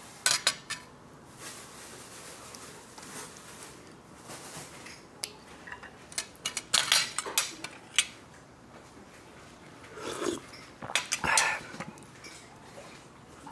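Small clicks and scratching as the flesh is picked out of a piece of cooked bakasi with a toothpick. They come in irregular bursts, busiest about 6 to 8 seconds in and again about 10 to 11 seconds in.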